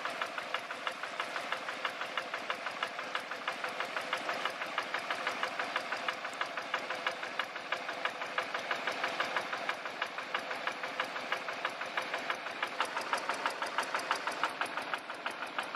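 Small single-cylinder diesel engine running steadily with a rapid, even knock as it drives a water pump through a shaft. Water gushes from the pump outlet underneath.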